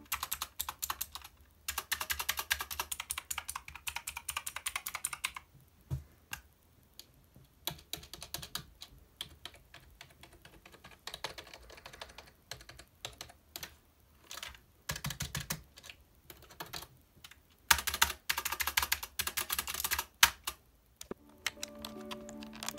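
Typing on computer keyboards in fast runs of keystrokes broken by slower single presses: first a backlit mechanical gaming keyboard, then a Razer Cynosa Lite membrane keyboard for comparison.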